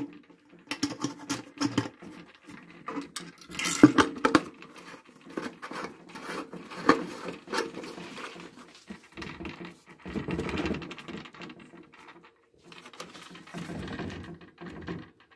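Predator 224 small engine handled and its flywheel turned by hand, giving irregular clicks, knocks and rattling, with longer rattling stretches about ten and fourteen seconds in. The rattle comes from a wire catching on the turning flywheel, as the owner finds.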